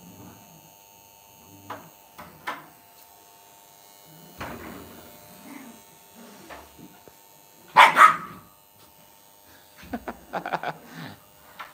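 Lhasa Apso dogs barking in short, separate barks while playing. There are a few small barks early, then two loud barks in quick succession about eight seconds in, and a quick flurry of yaps near the end.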